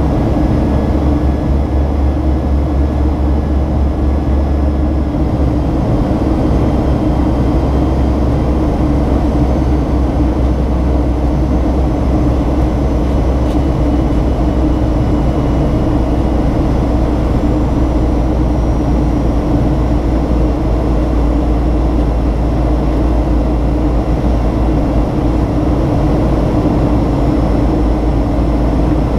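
Steady in-cabin drone of a Boeing 737-800 in its climb after takeoff. It is the sound of its CFM56-7B turbofan engines and the air rushing past the fuselage, over a deep, even hum.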